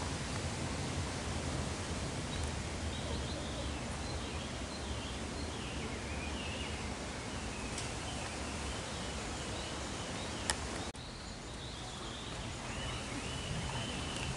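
Steady outdoor background noise with faint, wavering high chirps. There is a single sharp click a little past ten seconds in, followed by a brief dip where the sound cuts.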